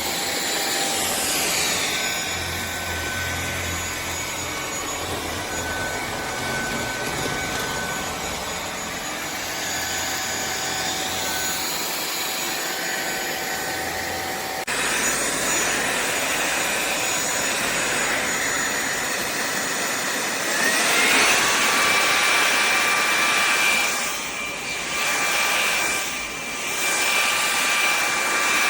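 SunSare X7A cordless stick vacuum running, a steady motor whine with a rush of air. About twenty seconds in, the whine rises in pitch and the vacuum gets louder, then dips briefly twice near the end.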